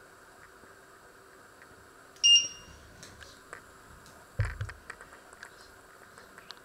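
Glass-ceramic electric hob's touch control giving one short, high beep as a key is pressed. About two seconds later comes a dull thump, followed by a few light clicks.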